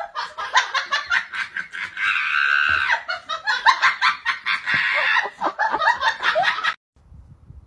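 A person laughing hard in quick repeated bursts, with one longer high-pitched squeal about two seconds in; the laughter cuts off suddenly near the end.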